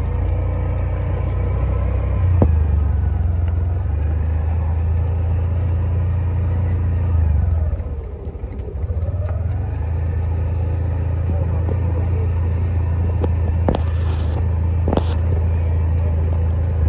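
A motor vehicle engine running on the move, heard as a steady low rumble that dips and shifts in pitch briefly about eight seconds in. A few sharp clicks come near the end.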